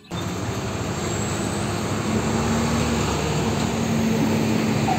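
Tanker truck driving along a road: its engine runs and its tyres roll, a steady drone with a low humming note that starts abruptly.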